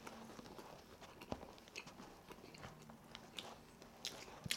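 Faint, close-miked chewing of a mouthful of Big Mac: soft wet smacks and small mouth clicks, with a sharper click about a second in and a few more near the end.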